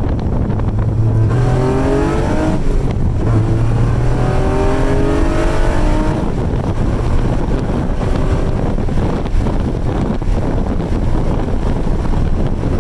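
Honda J32A 3.2-litre V6 swapped into a Civic, heard from inside the cabin, revving up hard through two gears with a quick gear change between the pulls. About six seconds in it eases off into steady running under road noise.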